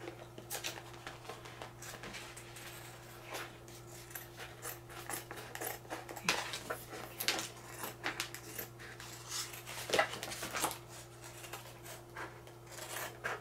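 Scissors snipping through a thin plastic placemat: an irregular run of short cuts, the loudest about ten seconds in.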